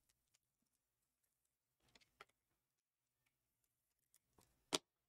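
Near silence with a few faint, short clicks and taps of trading cards being handled, the loudest one near the end.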